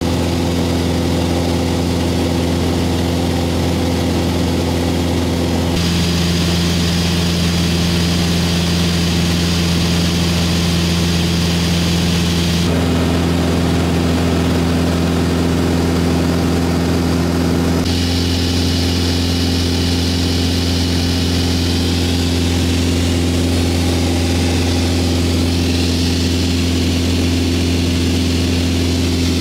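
The Mooney 201's single-engine piston powerplant and propeller drone steadily in flight, heard from inside the cabin. The tone of the drone changes abruptly three times, about six, thirteen and eighteen seconds in.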